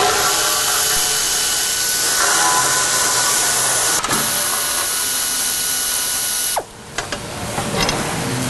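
Hand ratchet working the bolts of a welding fixture's hold-down clamps, with clicking and metal-on-metal clinks as the hold-downs are undone. A steady hiss runs under it and cuts off suddenly about two-thirds of the way through, leaving sharp clicks and knocks.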